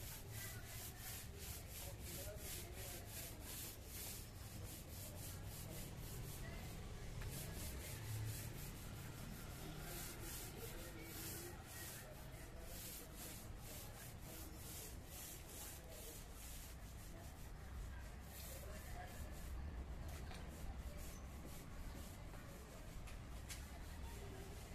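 Long-handled paint roller pushed back and forth over the terrace floor, spreading wet floor paint in repeated strokes.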